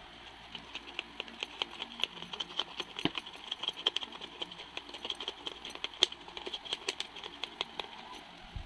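A stick ramming pounded namsing paste (fish and colocasia) down into a plastic bottle: quick, irregular clicks and taps, a few a second, starting about half a second in.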